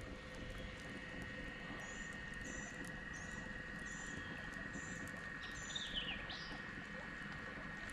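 Faint birdsong from the riverbank woods: a string of short, high chirps about every half second, then a couple of downward-slurred whistled notes near the end, over a faint steady hum.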